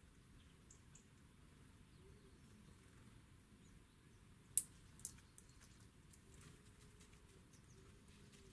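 Very quiet background with faint scattered high ticks, broken by one sharp click about halfway through and a smaller click half a second later.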